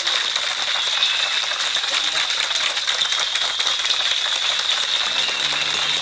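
A crowd applauding steadily, a dense patter of many hands clapping. A melody starts near the end.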